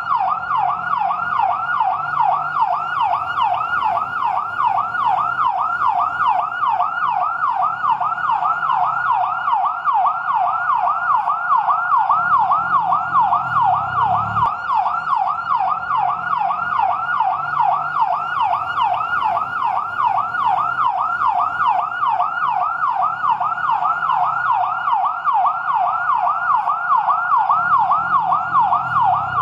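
Fire truck siren in yelp mode: a fast, even wail that sweeps up and down in pitch about three times a second without a break.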